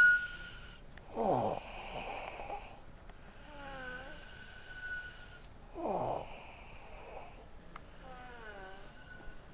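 A 13-year-old boy snoring in his sleep: two loud snores, about a second in and again near six seconds, each sliding down in pitch, with a thin high whistle and warbling on the quieter breaths between them.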